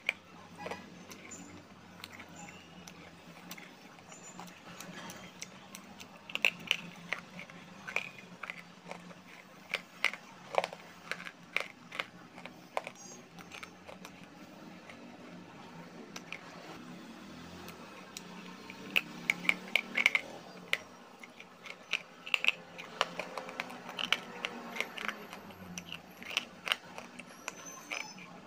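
Dry grey clay being crunched and chewed in the mouth, close to the microphone. The sharp crunches come in bursts, with quieter chewing between them, over a faint steady low hum.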